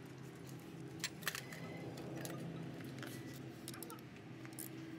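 Faint light metallic clicks and taps from a hand socket and extension as main bearing cap bolts are run in lightly by hand, a handful of separate ticks over a steady low hum.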